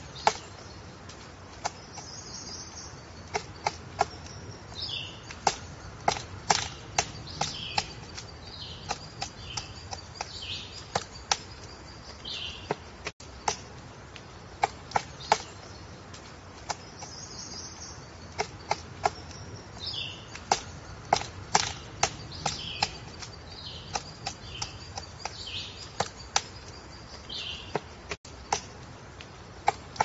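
Pileated woodpecker excavating a tree trunk: irregular, sharp pecks of its bill chiselling into the wood. High bird calls that fall in pitch come and go behind the pecking.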